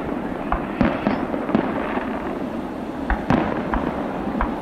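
Aerial fireworks shells going off: about seven sharp bangs at uneven intervals over a continuous noisy background.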